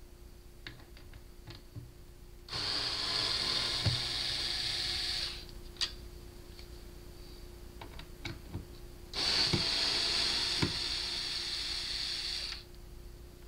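A cordless power screwdriver or drill runs twice for about three seconds each, backing screws out of a speaker cabinet. Light clicks and knocks of handling come in between.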